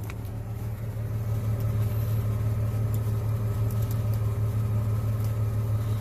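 A steady low mechanical hum, a motor or engine running at constant speed, with no change in pitch.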